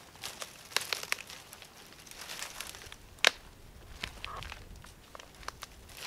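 Dry dead branches and twigs snapping and crackling as they are pulled and broken off a pile of brushwood by hand, with rustling between irregular sharp cracks; the loudest snap comes about three seconds in.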